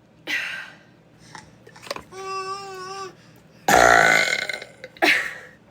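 A woman's loud, deep burp lasting almost a second, about two-thirds of the way in. Just before it comes a shorter, higher sound held at a steady pitch for about a second.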